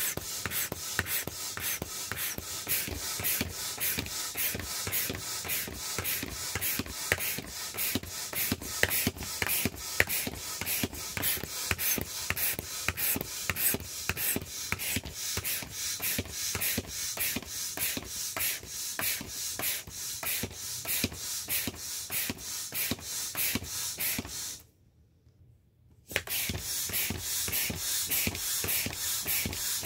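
Air pump worked in quick, even strokes, about three puffs a second, filling a vinyl inflatable rooster with air. The pumping stops for about a second near the end, then resumes.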